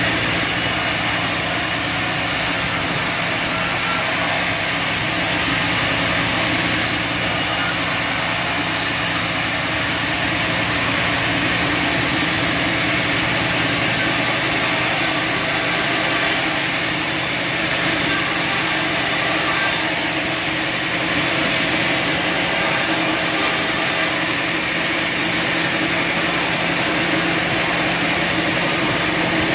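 Bandsaw sawmill sawing through a log: a steady, unbroken drone of the mill's motor and blade in the cut.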